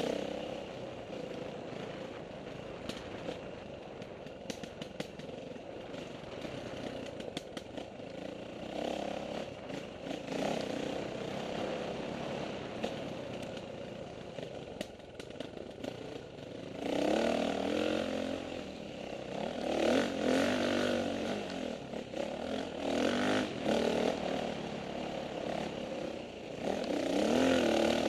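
KTM 450 XC-W four-stroke single-cylinder dirt bike engine running under varying throttle on a rough trail, with scattered rattles and knocks from the bumps. Over the second half it gets louder, revving up and down repeatedly.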